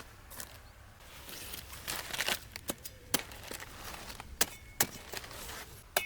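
Several sharp snaps and cracks at irregular intervals over a light rustling.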